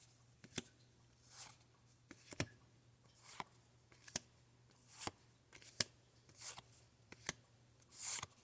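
Pokémon trading cards handled one at a time: a soft swish as each card slides off the stack, followed by a light click or tap, repeating about every second and a half.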